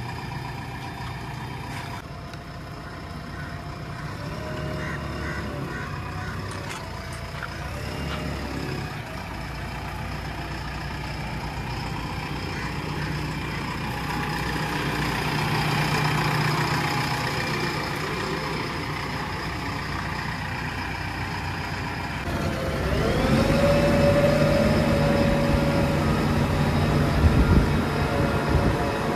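JCB 3DX backhoe loader's diesel engine running as the machine drives, its revs rising and falling. About three quarters of the way through it gets louder, and a whine rises and then holds at one steady pitch.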